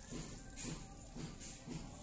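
Background music with a steady beat of about two strokes a second and a tambourine-like jingle.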